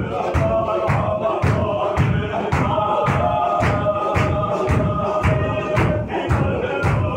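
Men of a Sufi zikr circle chanting the dhikr together in unison over a fast, steady beat of stamping and clapping, about three beats a second.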